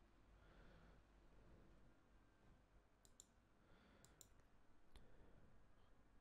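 Near silence with a few faint computer mouse clicks: a double click about three seconds in, another double click a second later, and a single click near five seconds.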